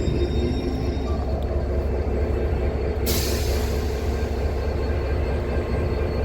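Class 69 diesel locomotive's engine running steadily at the platform, with a sudden burst of air hissing from the brakes about three seconds in that fades over a second.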